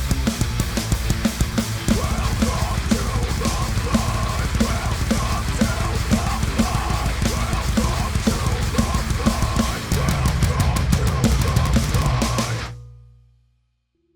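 Heavy rock song with a drum kit played hard over distorted guitar and bass. A burst of rapid cymbal and drum hits comes near the end, then the song stops about 12.5 s in and dies away to silence within a second.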